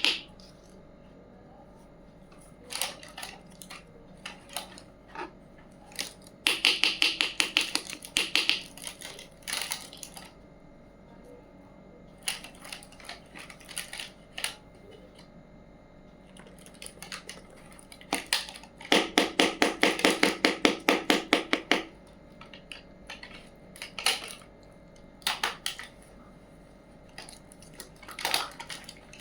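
Small toy kitchen pieces being handled: runs of quick, sharp clicking and tapping, about ten clicks a second in bursts lasting a second or more, with single taps between them.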